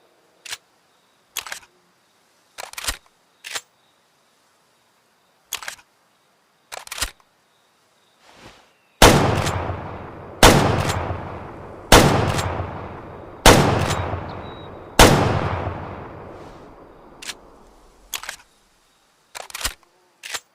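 Remington 7600 pump-action rifle: short metallic clicks of the action being handled, then five shots about a second and a half apart, each trailing off in a long echo, then a few more action clicks near the end.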